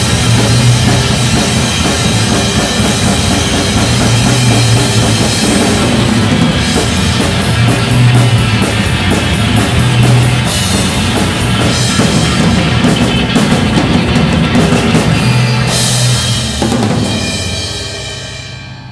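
Acoustic drum kit played hard in a rock groove, with bass drum and crashing cymbals. About sixteen seconds in the playing stops on a final hit and the cymbals ring out and fade away.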